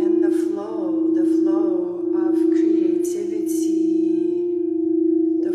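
Singing bowl ringing one steady, sustained tone that swells and dips about once a second. A woman's voice sounds softly over it, with breathy hissing.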